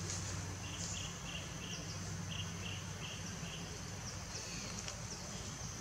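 Outdoor ambience of insects: a steady high-pitched drone with a run of short chirps, about three a second, in the first half. A steady low hum lies underneath.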